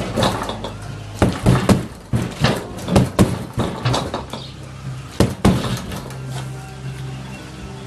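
A run of irregular knocks and clattering thuds, several a second at times, over a steady low hum.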